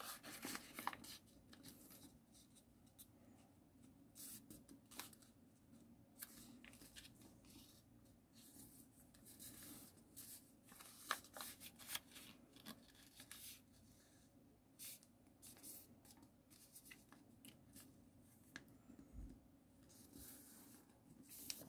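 Faint rustling and creasing of a sheet of paper being folded by hand, with irregular crisp ticks as flaps are pressed flat along their creases.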